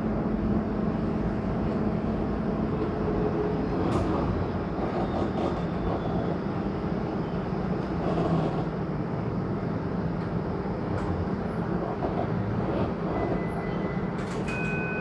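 Inside a moving TTC Flexity Outlook streetcar: a steady rumble of wheels on the rails with a low motor hum.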